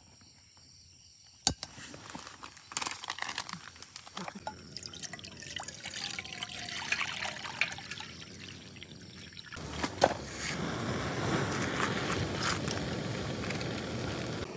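A sharp click at the canister gas stove, then water poured from a plastic bottle splashing into an aluminium camping pot. About ten seconds in there is a knock, and the stove's burner then hisses steadily under the pot.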